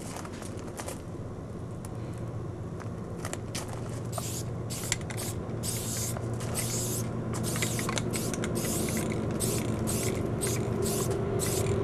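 Aerosol spray-paint can hissing in about a dozen short bursts as letters are written, starting about four seconds in. A low steady hum runs underneath and grows a little louder near the end.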